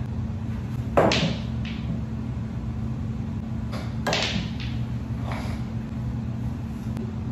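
Pool balls clacking on a small folding pool table. There is a sharp click about a second in, then a few fainter knocks, and another cluster of clacks around four seconds as a shot is played, all over a steady low hum.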